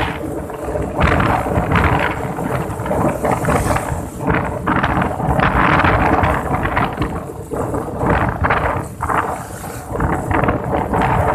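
Strong wind buffeting the microphone in uneven gusts, over a steady low rumble.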